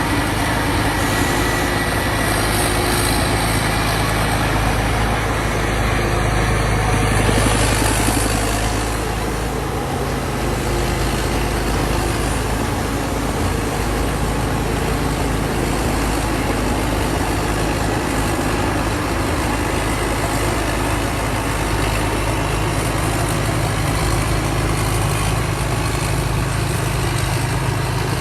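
Combine harvester's diesel engine running steadily under load, with a brief louder swell about seven seconds in.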